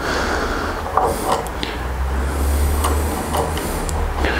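Scattered small metal clicks and scrapes as the nut for a rip fence's fine adjustment knob is worked into the slot of an aluminium guide rail, over a steady low hum that grows louder about halfway through.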